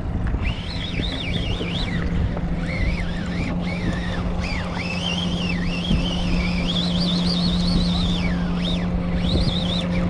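Mercury outboard motor running steadily at trolling speed, with wind and water noise on the microphone. Over it a thin, high whine wavers up and down the whole time.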